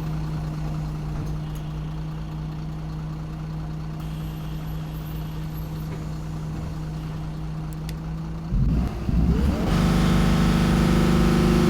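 Irisbus Crealis bus engine running steadily at idle, then pulling away about eight and a half seconds in, its pitch rising and the sound getting louder.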